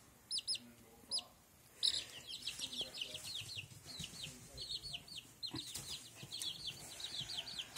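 Baby chicks peeping: a few high-pitched peeps at first, then from about two seconds in a steady run of rapid peeps, several a second.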